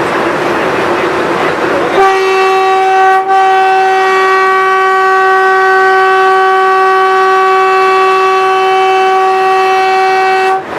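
Train horn sounding one long steady blast of about eight seconds at a constant pitch, with a brief break about a second after it starts. Before the horn, the steady rushing noise of a train running at speed.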